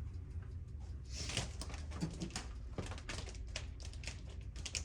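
Irregular light clicks and rattles of hand-handled metal parts and tools, starting about a second in, over a steady low hum.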